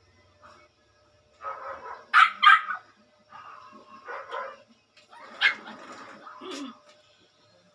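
A dog barking in several bouts, the loudest barks about two seconds in and again about five and a half seconds in.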